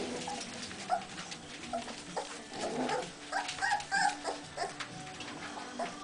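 Young puppies whimpering and yipping in many short, high squeaks, most of them in a busy stretch around the middle, with scrabbling and rustling of small paws on newspaper.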